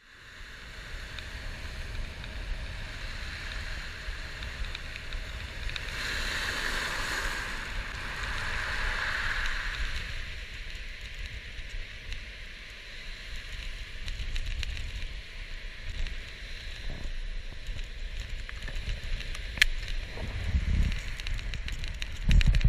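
Wind buffeting the microphone over the wash of surf on a gravel beach, with a swell of surf noise from about six to ten seconds in. There is a sharp click near the end, followed by heavier low gusts.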